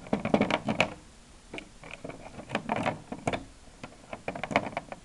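Plastic Hexbug Nano toy robots clattering as they are handled and set down on a table, in four short runs of clicks and knocks.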